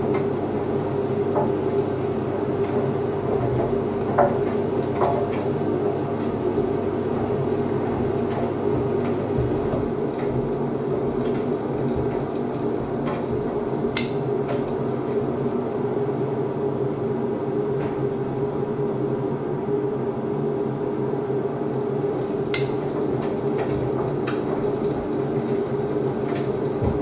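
Beko WDC7523002W washer-dryer drying: a steady hum from the drum motor and drying fan as the drum tumbles, with occasional sharp clicks, the clearest about halfway through and again near the end.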